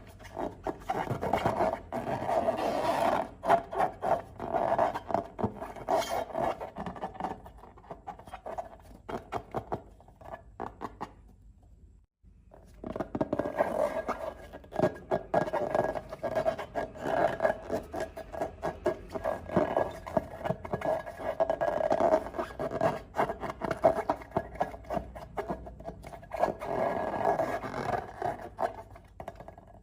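Slime being handled and squished, giving dense, irregular sticky crackles and scrapes, with a short break about twelve seconds in.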